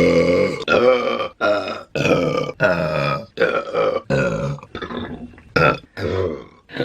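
A woman burping again and again: about ten short burps in quick succession, each under a second.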